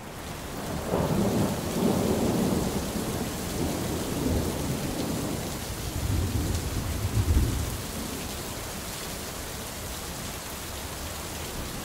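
Steady rain hissing, with a long roll of thunder that builds about a second in, is loudest about seven seconds in and dies away soon after.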